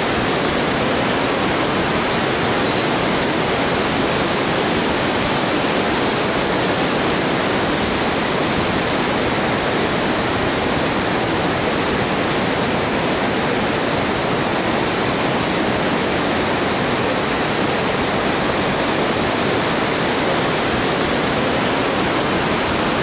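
Fast whitewater river rushing below, a loud, steady, unbroken noise of rapids.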